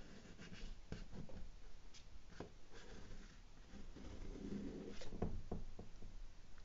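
A pastel stick rubbing and scratching across the painting board in short, irregular strokes.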